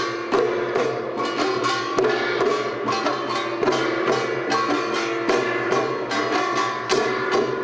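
Korean traditional folk music: drums struck in a busy, steady rhythm under a continuous melodic instrument line.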